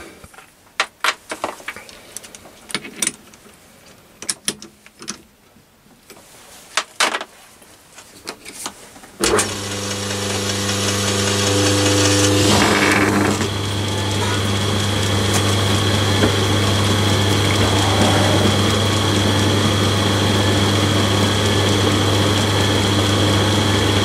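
Clicks and knocks as a small stainless steel nut is set and tightened in a three-jaw lathe chuck. About nine seconds in, a Myford ML7 lathe starts and runs steadily with a low motor hum. A few seconds later a steady high whine joins as a countersink chamfers the spinning nut.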